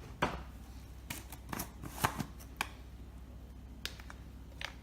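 Irregular light clicks and taps of a spoon against a bowl, about ten in all, as spice pastes are spooned onto raw chicken for a marinade.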